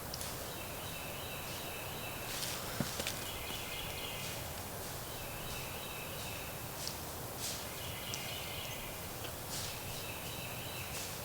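A bird singing a short trilled phrase over and over, each about a second and a half long and repeated every couple of seconds, over a steady background of wind noise. A few light clicks and rustles can be heard.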